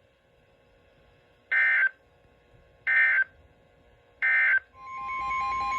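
Emergency Alert System broadcast on NOAA Weather Radio: three short bursts of the SAME digital header data, then the steady warning alert tone fading in near the end, with a pulsing beep about four times a second over it.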